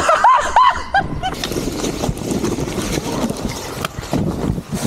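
A few short shouts, then a mini mountain bike and its rider sliding and crashing along a dirt trail into dry bracken: a rough, continuous scraping and rustling of tyres, body and plants on the ground.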